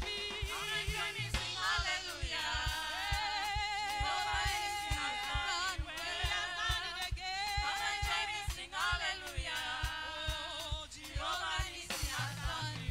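Live gospel praise and worship singing: several voices singing with vibrato over a band with a steady drum beat.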